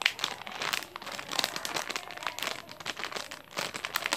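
Clear plastic bag around a unicorn squishy toy crinkling as hands handle it, an irregular run of crackles.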